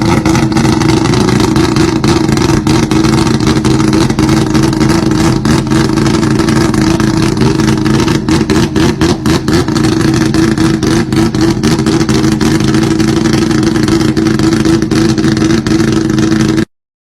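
Rotary-engined Datsun's Wankel engine and exhaust running loud, with a stretch of rapid choppy pulses partway through. The sound stops suddenly near the end.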